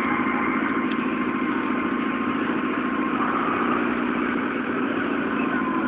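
Modified Fiat 500's tuned engine idling steadily.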